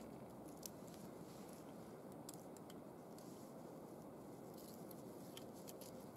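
Faint handling noises of cord being pulled and wrapped around a log lashing: scattered small clicks and rustles, one slightly sharper click under a second in, over a low steady hiss.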